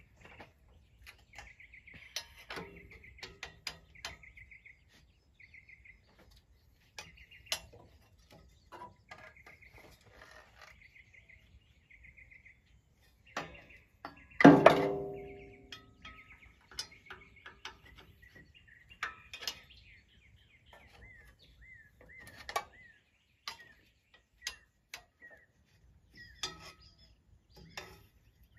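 Hand tools clinking and knocking against the tractor engine's generator bracket and pulley while the belt tension is adjusted, with one loud metallic clang that rings out briefly about halfway through. Faint chirping trills in the background.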